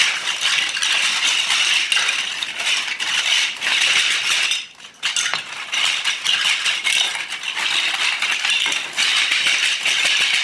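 Many small plastic marble-run pieces rattling and clattering against one another in a dense, continuous clatter, with a short break about four and a half seconds in.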